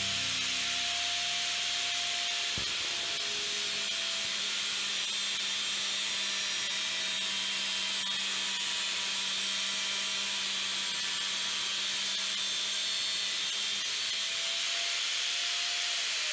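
Angle grinder running steadily, its disc grinding the carbon steel of a leaf-spring machete blade near the handle. A constant motor whine sits over a loud, even grinding hiss.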